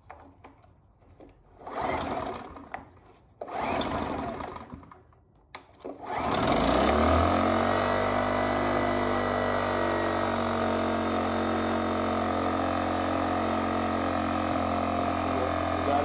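Generac iX800 portable inverter generator being pull-started: a few pulls of the recoil starter rope, then the small engine catches about six seconds in, its pitch settles within a second, and it keeps running steadily. It starts now that its dirty carburetor has been cleaned and the bad fuel replaced.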